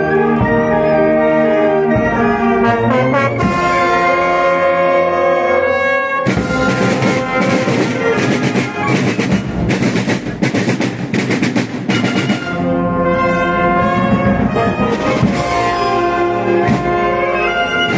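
Municipal concert band playing, led by trumpets and trombones. From about six seconds in to about twelve, a stretch of rapid percussion strokes runs under the band, then the sustained brass chords return.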